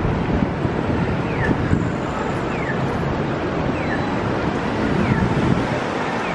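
Busy city-street traffic noise with wind on the microphone. A short, high, falling chirp repeats about once a second.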